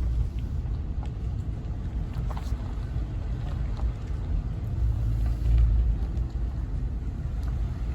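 Steady low rumble of a vehicle driving slowly, heard from inside the cab, with a few faint clicks and rattles.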